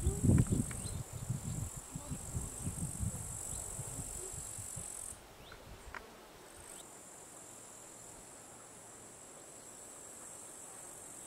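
Insects chirring steadily in one high, unbroken band. The chirring stops for about a second and a half midway, then resumes. A low, irregular rumble is heard during the first five seconds, loudest at the very start.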